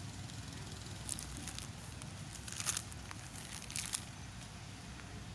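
Low, uneven wind rumble on the microphone, with a few short crackling rustles at about one second, near the middle and again shortly after.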